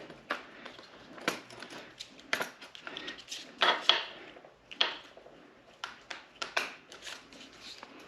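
Irregular clicks, taps and clatter of tools and small motorcycle parts, bolts and plastic body pieces, being handled during disassembly, with a few sharper knocks.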